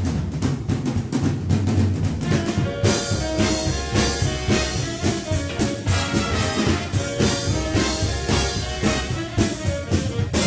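Background music: an upbeat band number with brass and drums and a steady beat.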